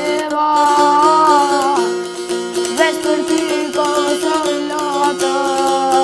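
A çifteli, the two-stringed Albanian long-necked lute, strummed with a steady drone, accompanying a child singing an Albanian folk song in long held notes that rise and fall.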